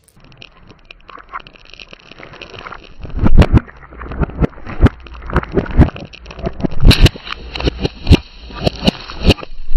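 Car tyre rolling slowly over brittle objects and crushing them: faint crackling at first, then from about three seconds in an irregular run of loud, sharp cracks and crunches.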